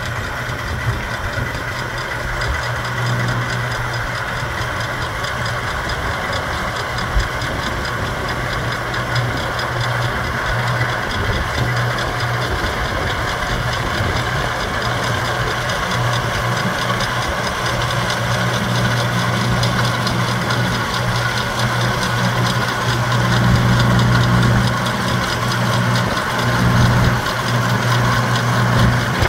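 Iseki compact diesel tractor running steadily at working speed, powering a Verti-Drain deep-tine aerator that punches holes in a golf green. The engine hum is constant, growing a little louder in the last few seconds as the tractor comes closer.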